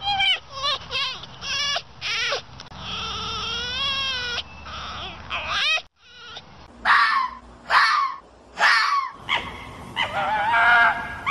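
Red fox calling: a quick run of short, high yelping calls, then a longer wavering scream-like call. After a short break about halfway through, more sharp yelps follow, and another long wavering call comes near the end.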